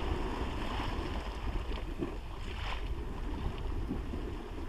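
Wind buffeting the microphone in a steady low rumble, with waves washing against the sea wall below.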